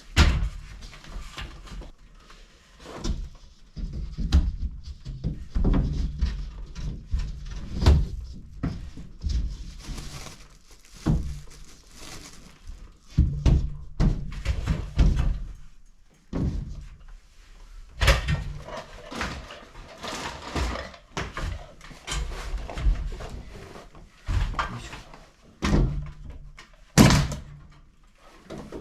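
Irregular thumps and knocks of interior renovation work in a small room, coming every second or so, with short scraping noises between them.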